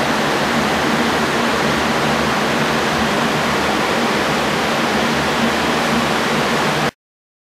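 Electric fans of a tornado-simulator rig running at high speed: a steady airy rush with a faint low hum. It cuts off suddenly about seven seconds in.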